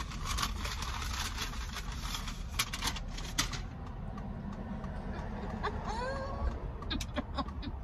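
Paper donut bag rustling and crinkling as it is opened and handled, for the first three seconds or so, over a low steady car-cabin rumble. Then quieter handling and a short rising hum of the voice about six seconds in, as a donut is bitten into.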